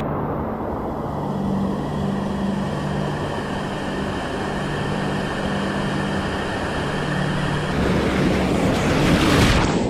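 Whitewater river rapids rushing: a steady wash of water with a low steady hum beneath it. About eight seconds in it turns to closer, louder water splashing around an inflatable kayak running the rapids.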